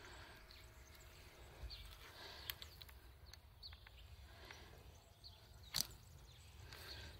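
Faint outdoor ambience: small birds chirping with short falling notes every second or so, a few faint clicks, and one sharper tap near the end.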